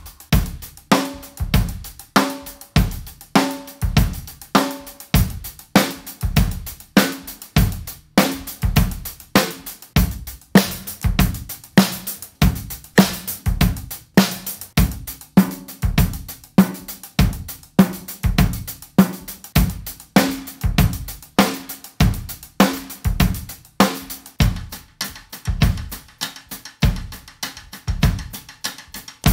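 A drum-kit groove played in a steady rhythm while the snare drum is struck in changing ways: cross stick, a timbale-like hit on the rim edge, rim shots, normal centre hits, with the snare wires off, then loosened, and finally hits on the edge of the rim. In some stretches the drum rings with a clear pitch.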